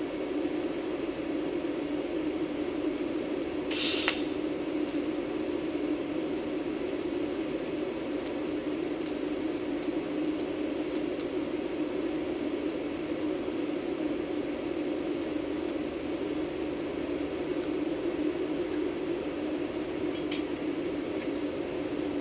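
TIG welding a small steel tab: a brief sharp crackle about four seconds in as the arc strikes, then a quiet arc over a steady low hum, with another short crackle near the end as it stops.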